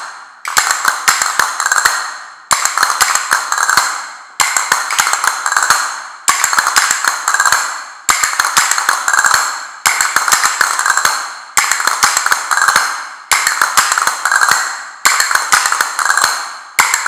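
Two pairs of castanets played together, repeating a short drill: a quick cluster of clicks and rolls about every two seconds, each phrase dying away before the next one starts.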